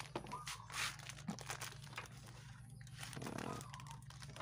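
Clear plastic bag crinkling as a new rear shock absorber, still in its packaging, is handled, in short irregular rustles.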